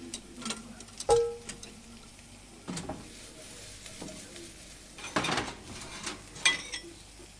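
Mutton masala sizzling gently in a stainless steel pot. A metal spoon clinks once against the pot with a short ring about a second in, and a ladle scrapes the pot in a few stirring strokes in the second half.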